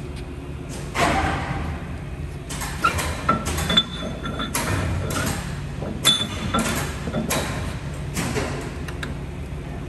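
A steel bar is set down on a Blanchard rotary surface grinder's magnetic chuck and knocked and slid against it. The result is a string of sharp metal clinks and scrapes, some ringing briefly, from about a second in to near the end. A steady low machine hum runs underneath.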